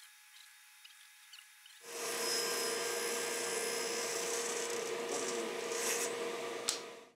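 Table saw cutting through a thick plywood block: about two seconds in, the spinning blade's steady whine and the cutting noise begin loud and hold steady, then stop abruptly near the end.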